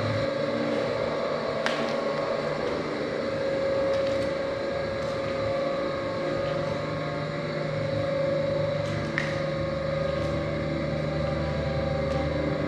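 Steady droning ambient background music of held, slowly shifting tones, with a few faint clicks.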